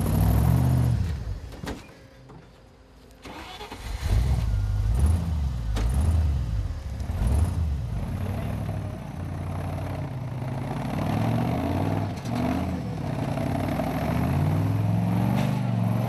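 Rock-crawling 4WD's engine revving hard in repeated rising and falling bursts as it climbs over rocks. It drops away for about a second two seconds in, then revs again, with a few sharp knocks along the way.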